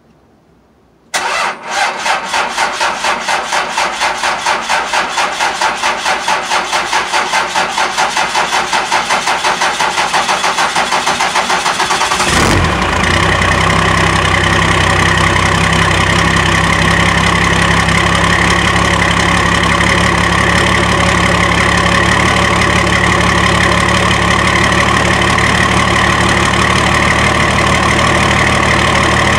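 Cold start at 22 degrees of a 5.9-litre 12-valve Cummins inline-six diesel with a P7100 injection pump, heard at the tailpipe: the starter cranks it in a fast, even rhythm for about eleven seconds before it catches, then it settles into a steady idle.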